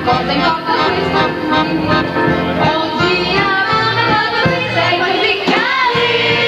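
Live band music: a woman singing over electric guitar and drums, with a steady beat.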